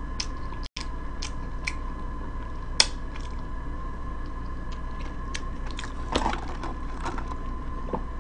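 Close-up chewing of a fish sandwich, with scattered small wet mouth clicks and smacks over a steady faint electrical hum.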